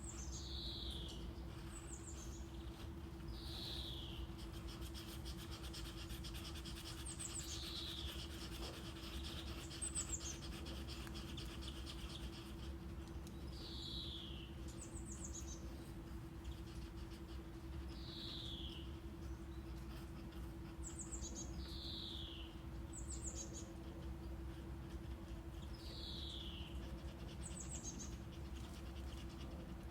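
Birdsong over steady brown noise: a bird repeats a two-part call, a short high note followed by a falling whistle, every two to three seconds, with a steady low hum underneath.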